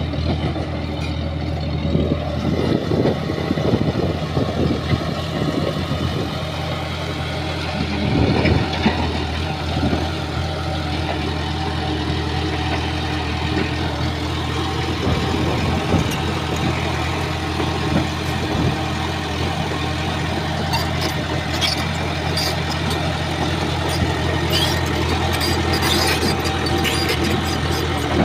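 Shantui bulldozer's diesel engine running steadily, with irregular knocks and crackles over it and sharper clicking in the last third.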